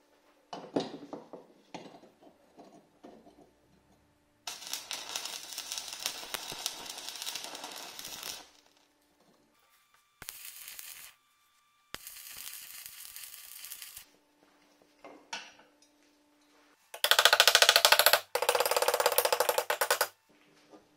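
Stick-welding arc from a homemade welder built out of a refrigerator compressor's motor, crackling in several bursts that start and stop abruptly, the longest about four seconds. The last bursts near the end are the loudest, with a low buzz under them. A few short scratches and taps come before the first burst, as the rod is struck.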